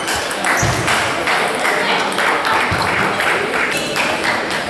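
Table tennis balls clicking off rackets and tables in quick, irregular succession, from the near rally and the neighbouring tables, over a murmur of voices in a large sports hall.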